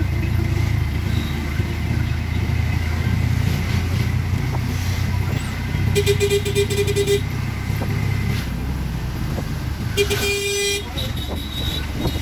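Vehicle horn honking twice over the steady low rumble of a rickshaw riding through town traffic: a toot lasting about a second, about six seconds in, and a shorter one about ten seconds in.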